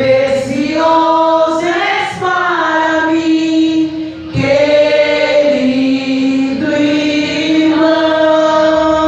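A woman singing a hymn into a microphone over the church loudspeakers, with other voices singing along; long held notes that slide between pitches, with a brief pause for breath about four seconds in.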